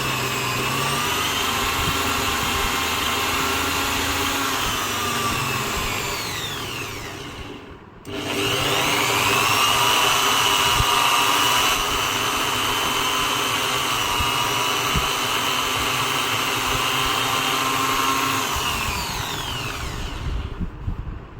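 Drill press motor running with a steady whine, then switched off and winding down with a falling pitch. It starts again about eight seconds in, runs steadily, and winds down once more near the end.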